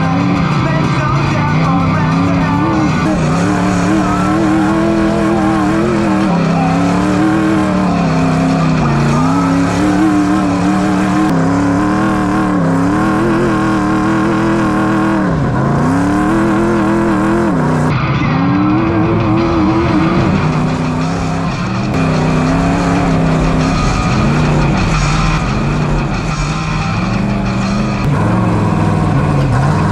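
Ultra4 off-road race car's engine heard onboard, revving up and falling back over and over as the car is driven hard over rocks and desert trail.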